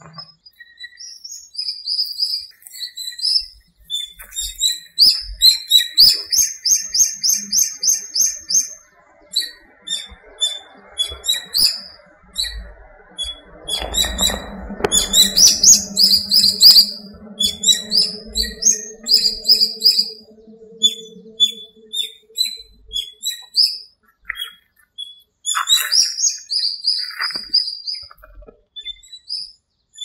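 Small songbirds at dawn: many short high chirps and quick trilled phrases, several birds overlapping. A low steady hum runs under them through the middle.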